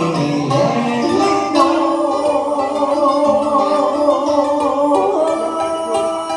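A man singing vọng cổ, the southern Vietnamese cải lương song form, through a handheld microphone, holding long wavering notes over instrumental accompaniment.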